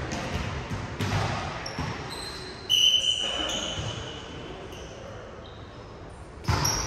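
Indoor ball game in a gym, likely volleyball: players' voices and court noise, with two loud sudden hits, one about a third of the way in and one near the end. The first is followed by a short, high steady squeak.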